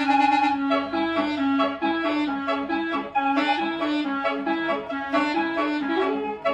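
A 42-note Basuri telolet horn playing a melody in the Tarawangsa style: a loud, reedy, stepwise tune of held notes that change about every half second.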